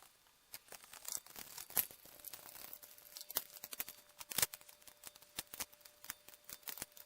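Irregular small clicks, taps and crinkling rustles of pump parts being handled on a workbench. A faint steady tone comes in about two seconds in.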